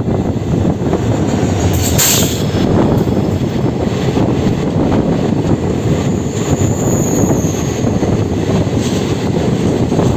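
Steady rumble and wheel-on-rail noise of an Indian Railways passenger coach in motion, heard from its open doorway with rushing air. A brief hiss comes about two seconds in, and a thin high wheel squeal from about six to seven and a half seconds.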